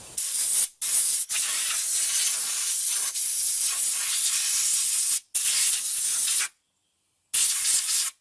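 Compressed-air blow gun hissing in long blasts with brief releases, blowing debris out of the ignition coil pack wells on the engine's cylinder head.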